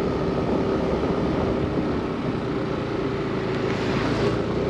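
Yamaha Aerox 155 scooter's single-cylinder engine running steadily while riding, under a steady rush of wind and road noise that swells briefly near the end.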